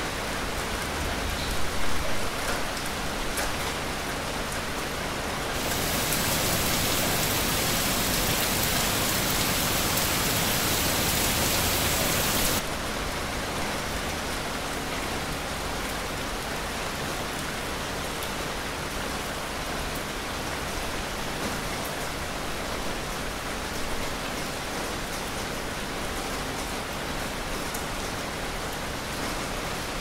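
Steady rain falling, with a few louder drops. From about six to twelve seconds in, it becomes louder and hissier, starting and stopping abruptly.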